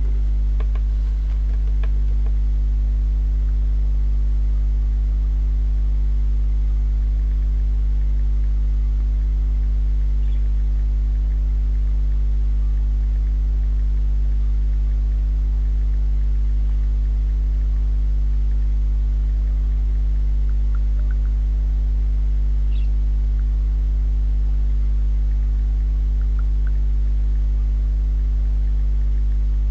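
Steady low electrical mains hum with a stack of evenly spaced overtones above it.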